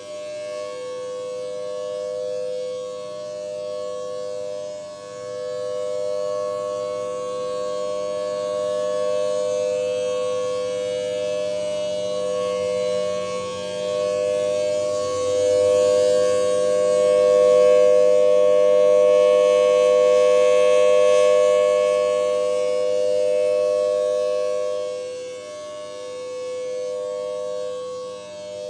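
Civil-defense warning siren sounding the steady tsunami-warning tone, a sustained two-note chord that does not change pitch. It swells and fades in loudness, loudest around the middle and dipping shortly before the end.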